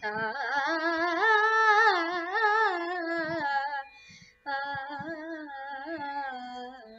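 A young girl singing a flowing Carnatic melodic phrase in raga Latangi without words, the pitch gliding up and down. She breaks off for about half a second midway, then sings a shorter second phrase.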